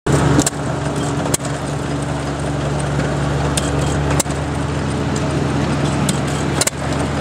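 Small antique flywheel gas engines running: a steady low engine drone broken by a few sharp pops at irregular spacing, a second to a few seconds apart.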